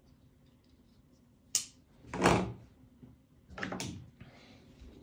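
Folding pocket knives being handled and set down on a hard surface: a sharp click about one and a half seconds in, then two louder knocks.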